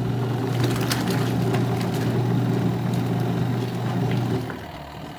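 Mini semi-automatic washing machine's motor running with a steady hum, just switched on for its first test, then dropping off about four seconds in.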